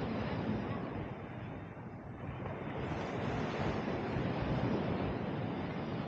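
Seaside wind and surf: a steady rush of noise with wind rumbling on the microphone, swelling a few seconds in and easing again.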